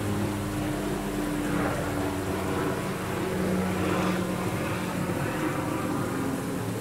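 A steady low mechanical drone, like a distant engine running, with a few low hum tones that drift slowly in pitch.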